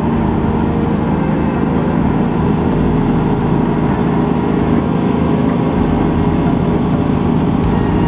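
Diesel engine of a SANY motor grader running steadily under load as the grader works its blade through a gravel road bed.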